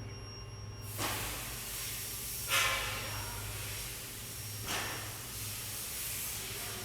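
A steady hiss sets in about a second in over a constant low electrical hum, with brief louder surges about two and a half seconds and about five seconds in.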